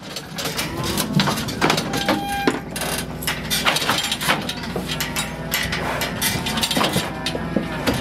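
Steel cattle squeeze chute and pen gates clanking and rattling as heifers are worked through, with cattle bawling over a steady low engine hum.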